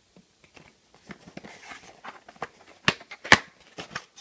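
Handling noise from opening an accessory package: light rustling of packaging and small ticks, with two sharp clicks about three seconds in.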